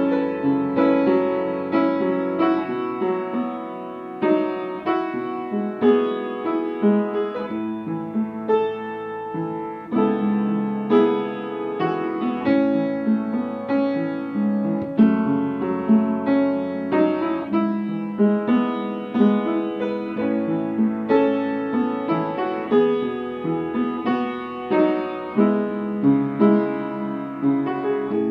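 Piano music: a quick, steady run of notes.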